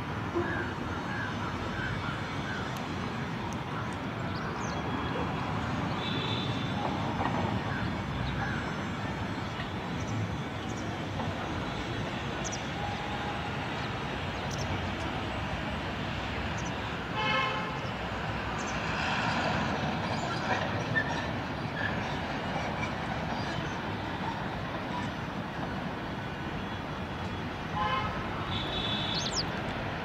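Steady road-traffic noise, with a vehicle horn tooting briefly about two-thirds of the way through and again near the end.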